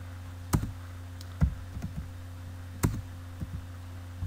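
Computer keyboard keys struck one at a time, about six separate clacks spaced half a second to a second apart, over a steady low electrical hum.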